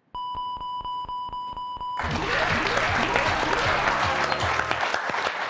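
Game-show letter-check sound: a steady electronic tone with about eight quick, even ticks as the word is checked letter by letter. About two seconds in, a short musical jingle and applause take over, marking the word as correct.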